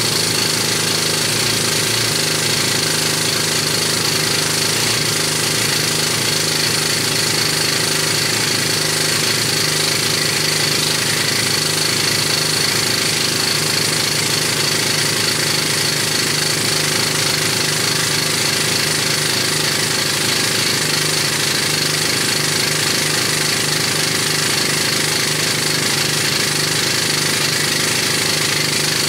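Rock hammer drill running against rock, a loud, steady, rapid hammering that goes on without pause.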